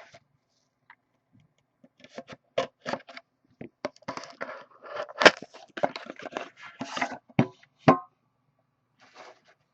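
Crackling, snapping and tearing of packaging being handled and opened, typical of shrink-wrap and cardboard on a sealed trading-card box, in a dense run of sharp crackles from about two seconds in until about eight seconds.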